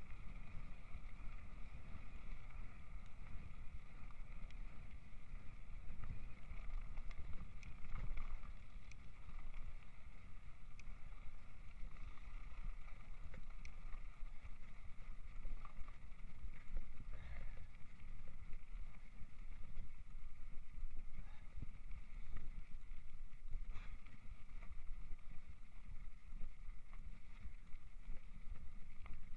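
Mountain bike ridden over a rough gravel farm track: a steady low rumble of the tyres and the shaking bike, with scattered small clicks and rattles.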